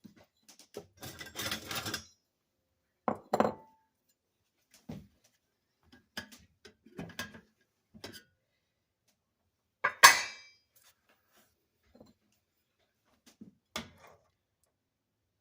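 Kitchen dishes and utensils clinking and scraping. A scraping stretch comes about a second in, then separate sharp clinks; the loudest is about ten seconds in.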